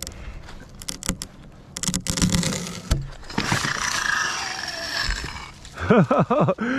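Sharp cracking and snapping as a cut section of tree breaks free at the hinge, then a rushing, rattling noise lasting a couple of seconds as it drops and the lowering rope runs. A person's shout or yell comes near the end.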